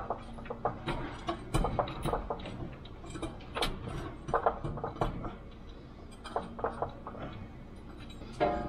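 Irregular metal clanks and clicks from shop work under a semi truck as a heavy transmission is moved into position to be stabbed into the clutch, over a steady low hum.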